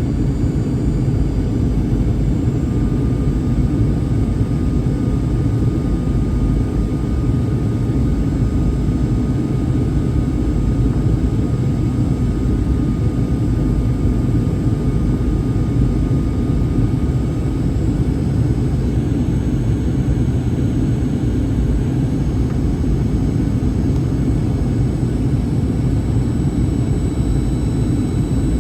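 Steady cabin noise inside a Boeing 737-800 with its CFM56-7B engines running: an even low rumble of engines and airflow, with faint steady whine tones above it.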